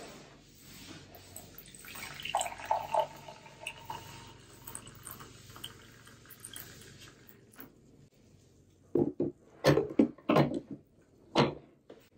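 Hot coffee poured from a glass coffee-maker carafe into a glass mug, a steady liquid splash for a few seconds. Near the end, several loud clunks as the carafe is set back onto the coffee maker's warming plate.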